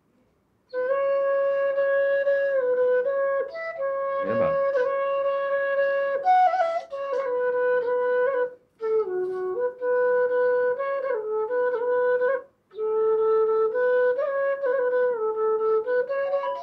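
Bass bansuri (bamboo flute) from a Punam Flutes set being played: a slow melody of long held notes that step up and down, in phrases broken by short breath pauses.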